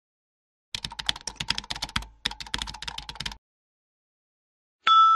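Sound effect of rapid computer keyboard typing, in two runs of keystroke clicks with a short pause between. Near the end a bright bell-like ding strikes and rings on.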